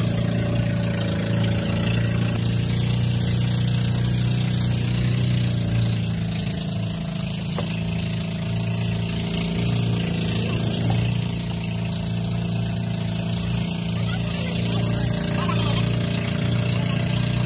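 Outrigger boat's (bangka's) engine running steadily under way: a loud, even low drone with a hiss over it.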